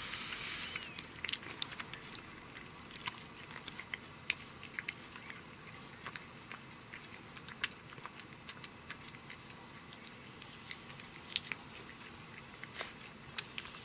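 A domestic tabby-and-white cat chewing and biting into a whole grilled sardine: irregular sharp clicks and small crunches of its teeth working the fish.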